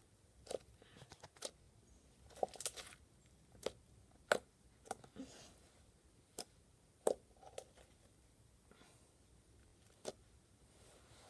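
Thick chewed-bubblegum-style slime being handled, giving about a dozen irregular sticky clicks and pops with quiet gaps between them.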